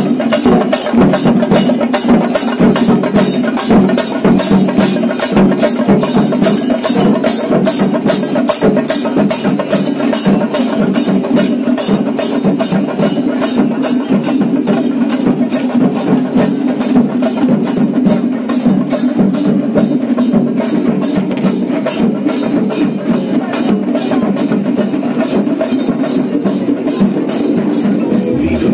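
Traditional Kerala temple percussion ensemble (chenda melam): massed chenda drums beaten with sticks under a rapid, steady clash of ilathalam cymbals, continuous and loud.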